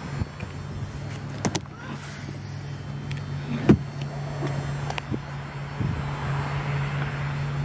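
A few light knocks and clicks as a hand handles a Porsche 911's inner door panel and door pocket, the sharpest a little before halfway through, over a steady low hum.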